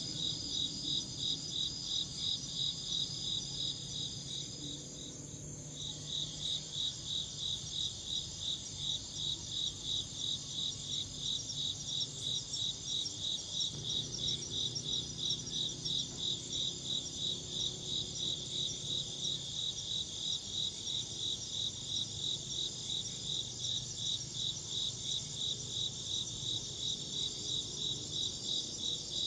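Insects chirping in a steady, even rhythm of about two chirps a second, with a brief pause about five seconds in.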